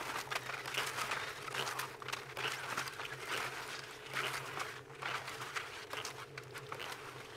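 Touring skis and poles crunching in a steady stride on cold, dry snow, about two strides a second, growing slightly fainter as the skier moves away.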